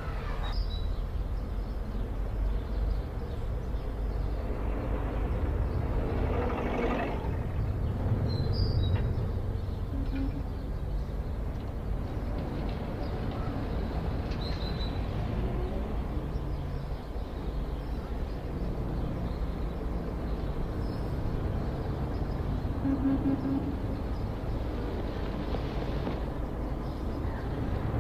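Outdoor city street ambience: a steady low rumble of traffic, with a few faint brief sounds in the background.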